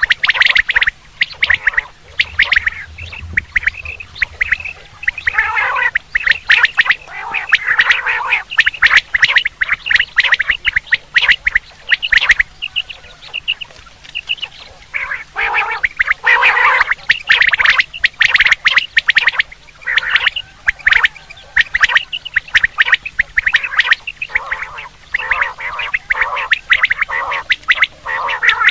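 Quail calls recorded for use as a hunting lure: a dense, fast run of short repeated call notes, thinning briefly about halfway through before picking up again.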